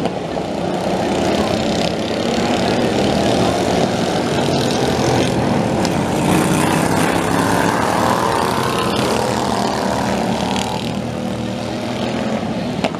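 Several racing lawn mowers' small engines running hard together, loudest about midway as the pack passes near, then easing as it moves away.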